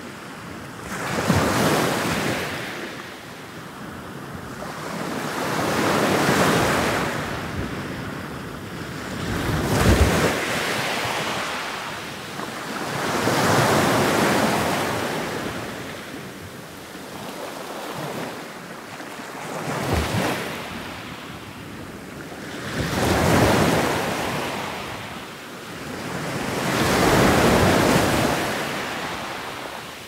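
Ocean surf: about eight waves breaking one after another, each a rushing wash that swells and fades over a few seconds.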